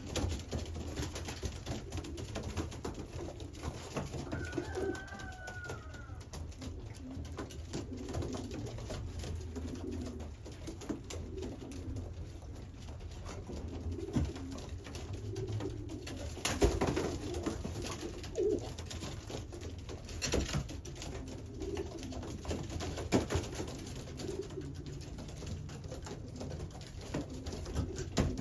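Racing pigeons cooing steadily, with a few sharp clicks or knocks in between.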